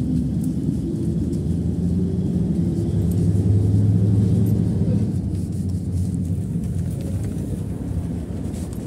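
PAZ-32053 bus under way, heard from inside the passenger cabin: a steady low engine drone and road rumble that grows louder a few seconds in, then eases.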